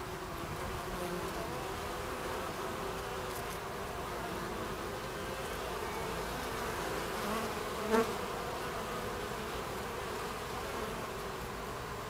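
Buckfast honeybees buzzing at the entrance of a wooden beehive, a steady hum of many bees flying in and out. One brief, louder sound stands out about eight seconds in.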